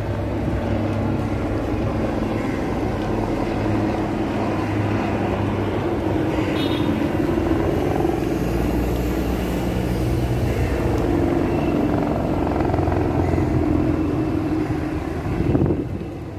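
Helicopter flying past overhead, its rotor and engine giving a steady low drone that swells briefly near the end and then drops away.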